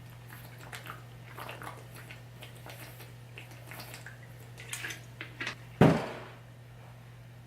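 Scattered light clicks and taps from a makeup brush and eyeshadow palette being handled, with one sharp, louder knock about six seconds in, over a steady low hum.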